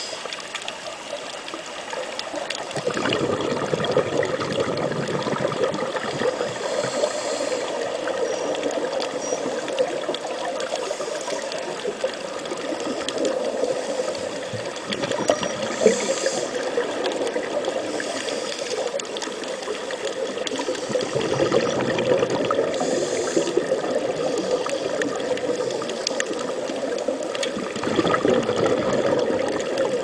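Steady rushing and bubbling of water with fine crackling, as heard underwater, swelling and easing every several seconds.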